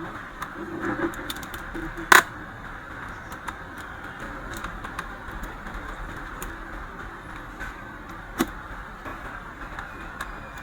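Small hard clicks and taps from handling a laptop's plastic case and parts, with two sharper knocks, about two seconds in and near the end, over a steady background hiss.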